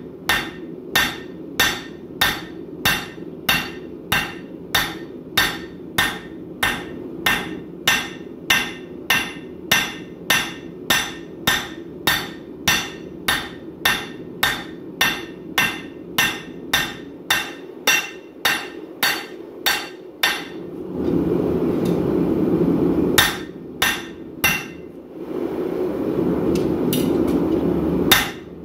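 Hand hammer striking hot 5160 steel on an anvil in steady, evenly paced blows, about two a second, for roughly twenty seconds over a low steady rush. Then a louder steady rushing noise comes up, broken by a short run of four strikes and a single blow near the end.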